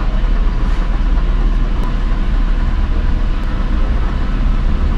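Car engine idling, a steady low rumble heard inside the cabin.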